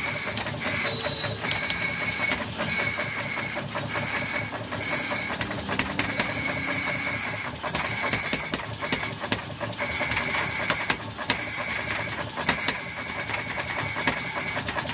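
Power hammer pounding rapidly on a red-hot axe head, its ram striking a handheld top tool that the smith holds on the hot steel: a fast, continuous run of metal-on-metal blows.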